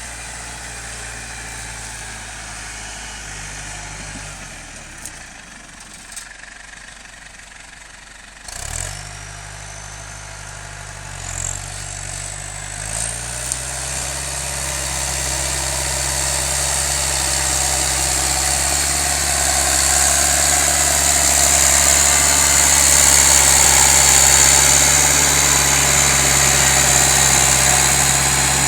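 John Deere 6210 tractor's diesel engine slows and runs low for a few seconds, then picks up again about nine seconds in, rising in pitch in steps with a few knocks. It grows steadily louder and noisier toward the end as it works pulling a five-furrow reversible plough.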